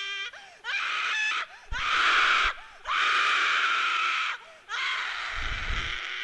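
A woman screaming: a run of about four loud, harsh screams with short breaks between them.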